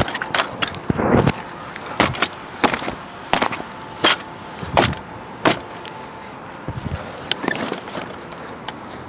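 Irregular knocks, clinks and clatter of camping gear being handled and packed away, about a dozen sharp hits spread over several seconds.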